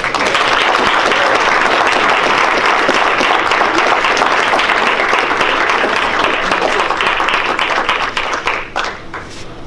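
Audience applauding: dense, steady clapping that starts suddenly and thins to a few scattered separate claps near the end.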